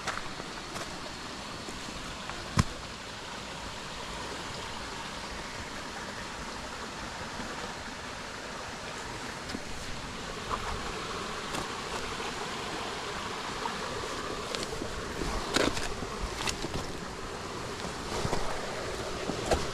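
Jungle creek water running steadily. There is one sharp knock a few seconds in and a scatter of small cracks and clicks near the end.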